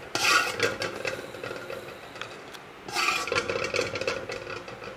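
Metal spoon scraping and stirring caramelising sugar in a metal pot, in two spells of rapid scraping about a second long each, the first at the start and the second about three seconds in, with quieter scraping between.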